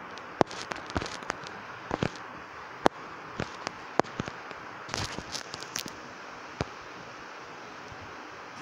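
Irregular sharp clicks and taps, several bunched together a little after the middle, over a steady hiss.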